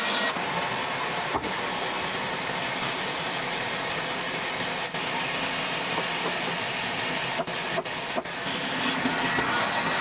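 Sawmill band saw running steadily, its blade cutting through a wooden plank.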